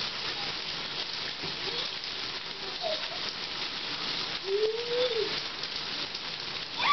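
Steady rush of water in a bathtub. About four and a half seconds in, a baby makes one short rising-and-falling vocal sound.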